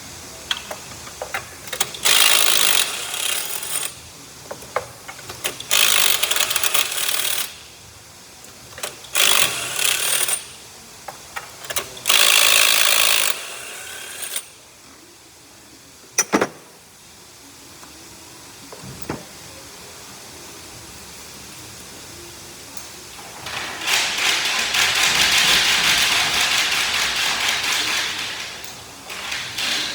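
Handheld power wrench working fasteners on a car engine, most likely spark plugs coming out, in four short runs of one to two seconds and then one longer run of about five seconds. A couple of sharp metal clicks come in between.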